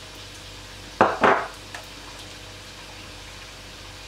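Two quick knocks of kitchenware, a measuring teaspoon against the plastic mixing bowl or seasoning container, about a quarter second apart, with a fainter tap just after. A steady low hum runs underneath.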